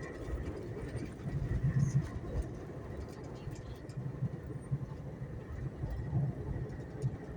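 Low, steady rumble of a VIA Rail passenger train running, with a faint steady high whine over it.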